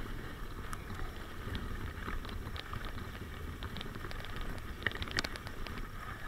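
Mountain bike riding over a rough, stony dirt trail: a steady rumble of wind on the microphone and tyres on the ground, with scattered clicks and knocks from the rattling bike, sharpest about five seconds in.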